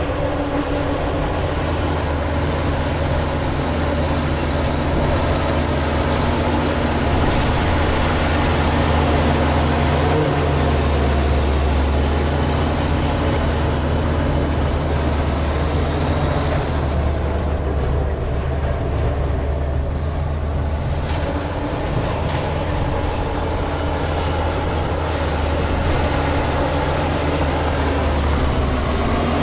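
Large Komatsu bulldozer's diesel engine running, a steady deep drone whose low note shifts slightly a few times.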